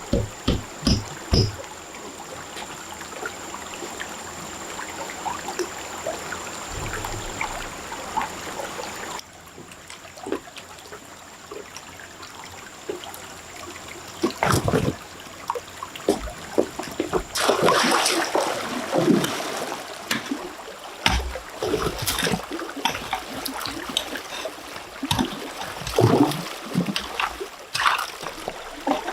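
Water trickling and splashing, with many irregular knocks and splashes; the activity gets busier after a cut about a third of the way in.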